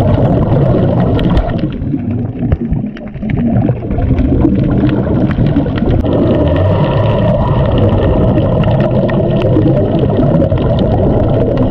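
Muffled underwater sound from a camera held beneath the sea: low rumbling and gurgling as a scuba diver breathes out through the regulator, sending bubbles up. A faint steady hum comes in about six seconds in.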